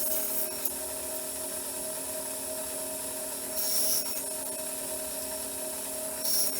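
Small power tool working wood, its motor running at a steady pitch. There are three brief, louder hissing surges as it bites into the wood: at the start, about four seconds in, and near the end.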